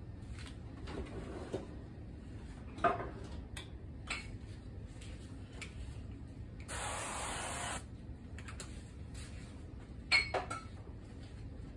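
Aerosol cooking spray hissing for about a second onto a nonstick frying pan, a little past the middle. A couple of short, sharp knocks come before and after it.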